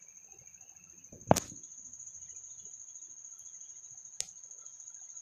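A sharp knock about a second in and a fainter click near the end, over a steady high-pitched whine.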